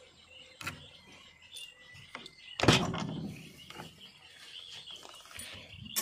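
JCB 3DX backhoe loader's cab door being unlatched and opened: a few light clicks of the handle and latch, and one loud clunk about two and a half seconds in.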